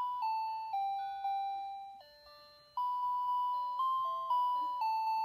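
Electronic toy melody from a Safety 1st baby walker's activity console: a simple tune of single beeping notes stepping up and down, with a short pause about two seconds in.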